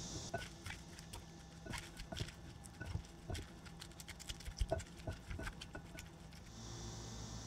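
Silicone tongs and a spatula tossing a dressed tofu-noodle and lettuce salad in a glass bowl: irregular light clicks and taps against the glass as the greens are turned over.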